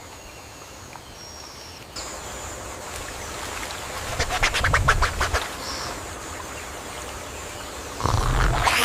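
A rapid rattling run of harsh animal calls, about eight clicks a second for a second and a half, over steady outdoor ambience, followed near the end by a louder noisy burst.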